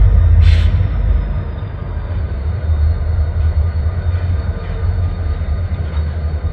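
EMD GP40-2 diesel-electric locomotives' turbocharged V16 diesel engines running with a deep steady rumble as the consist moves slowly, easing slightly after the first second or so. A short hiss comes about half a second in.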